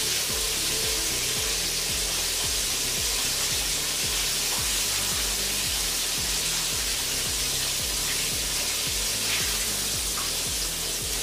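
Chicken drumettes deep-frying in a skillet of hot oil, a dense, steady sizzle, over background music with a repeating bass beat.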